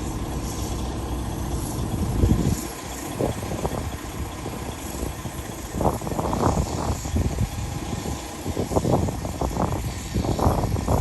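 Heavy truck engine running steadily, with irregular loud thumps and knocks breaking over it several times.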